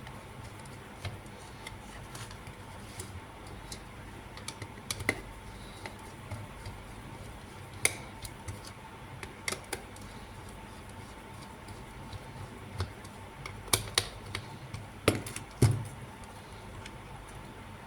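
Irregular sharp clicks and taps, like small hard parts being handled, with a cluster of louder ones near the end, over a faint steady hum.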